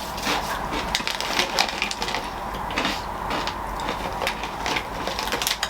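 Close-up chewing of crunchy shell-coated peanuts (Nagaraya cracker nuts): a steady stream of irregular crunches.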